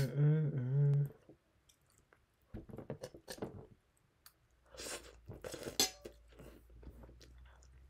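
A person chewing crunchy food close to the microphone, with clusters of crackly crunches about two and a half seconds in and again around five seconds in. A brief hummed voice sound comes first, in the opening second.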